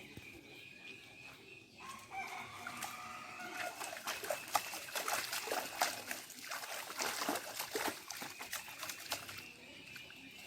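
A rooster crowing about two seconds in, followed by several seconds of irregular splashing and clicking water.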